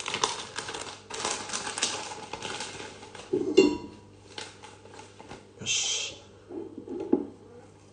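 A plastic packet of katsuobushi (dried bonito flakes) crinkling as it is pulled open and handled. Dense crackling lasts about three seconds, then thins to scattered rustles with one short hissing rustle about six seconds in.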